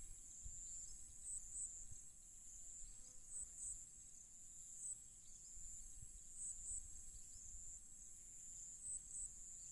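Quiet background noise: a steady high-pitched hiss with faint short chirps, mostly in pairs, every second or two.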